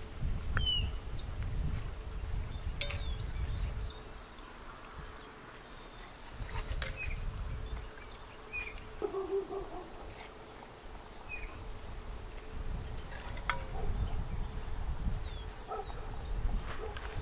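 Outdoor ambience of a low, gusting rumble of wind on the microphone and insects buzzing. A few light clicks come from a metal skimmer against a cast iron Dutch oven.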